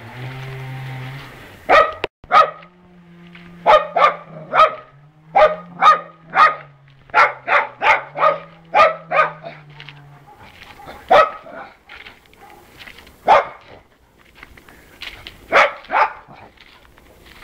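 A dog barking repeatedly: quick runs of sharp barks through the first half, then single barks every couple of seconds.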